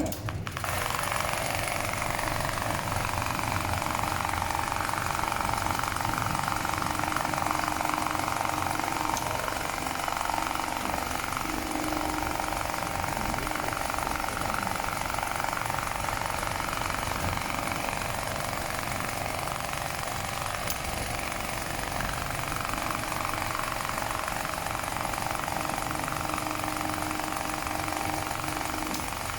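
BAS-342GXL CNC programmable pattern sewing machine stitching, its mechanism starting up at once and then running steadily.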